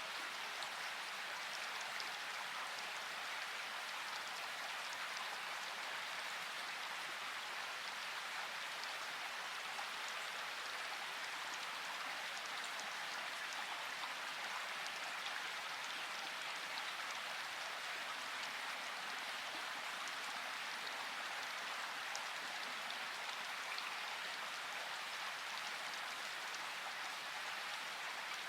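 Steady rain falling, an even hiss with scattered individual drops ticking throughout.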